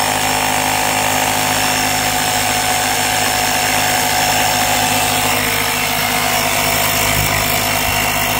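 Built-in air compressor of an Everstart Maxx 800A jump starter running steadily and loudly, with strong air blowing freely out of the open hose end.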